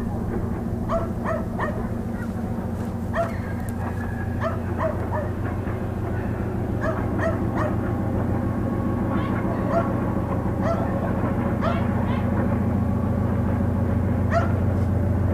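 Steady low drone of an approaching 3TE10M diesel locomotive's engine, slowly growing louder, while a dog barks repeatedly in short yelps throughout.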